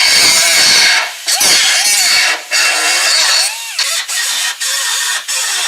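Power cut-off tool cutting through sheet steel: a loud grinding hiss that stops and starts several times, its pitch sagging and recovering as the wheel bites.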